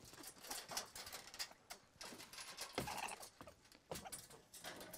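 Wire-mesh live trap rattling and clinking as it is carried and set down with a prairie dog inside: a faint run of irregular metallic clicks and knocks.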